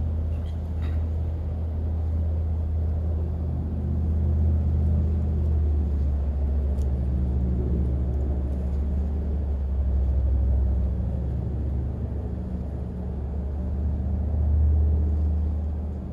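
A steady low rumble with a faint hum, like distant motor traffic or wind on the microphone, and a faint click about a second in.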